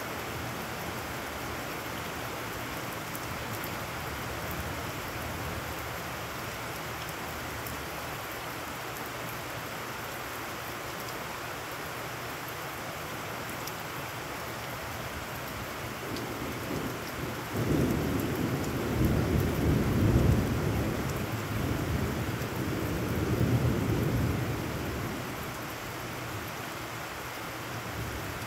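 Heavy rain falling steadily onto puddled ground. About two-thirds of the way in a loud low roll of thunder sets in, swells twice and dies away over several seconds.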